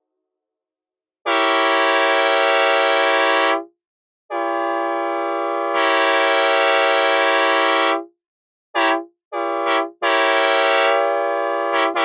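Synthesized recreation of the SL4T-style horn on Amtrak EMD F40PH No. 213, sounded dry at a steady pitch. It gives two long blasts, two short ones, then a final long blast.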